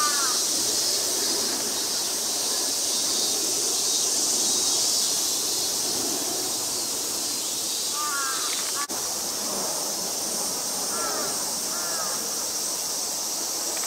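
Outdoor ambience: a steady high hiss over a low rumble, with a bird calling in short groups of quick arcing notes near the start, about eight seconds in and again about eleven seconds in.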